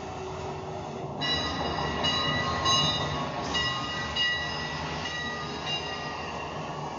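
Steady rumbling noise with a high, whistling or squealing tone that comes in suddenly about a second in and wavers for most of the rest.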